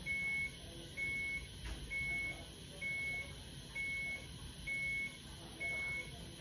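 Hospital bedside medical equipment alarm: a high single-tone beep repeating about once a second, each beep a little under half a second long.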